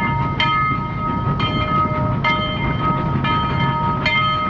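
Postwar Lionel O-gauge toy train running on its track: a steady rumble with a click about once a second, each followed by a ringing metallic tone.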